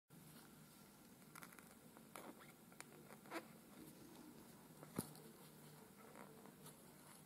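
Faint handling sounds of hand-sewing rigid gold purl onto felt: a few soft clicks and rustles as the thread is drawn through and the metal coil is handled, with one sharper click about five seconds in, over a low steady hum.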